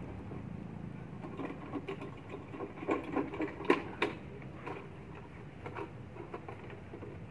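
A mango-picking pole tipped with a cut plastic bottle being worked among mango branches: irregular clicks, knocks and leaf rustles, thickest in the middle, with one sharp click about three and a half seconds in.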